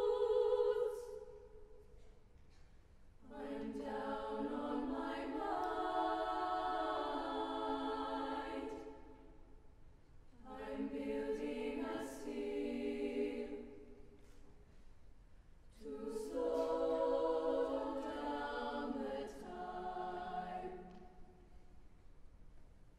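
Mixed youth choir singing a cappella in close harmony: three sung phrases, each a few seconds long, separated by short quiet pauses.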